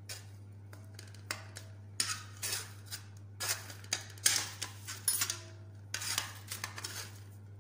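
Metal serving tongs clicking and clinking, with short scrapes against a ceramic platter, in a run of quick irregular clicks, some with a brief ring. A steady low electrical hum sits underneath.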